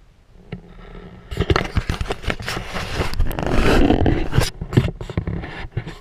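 Handheld camera being handled and turned, with irregular knocks, rubbing and scraping right on the microphone, loudest about three to four seconds in.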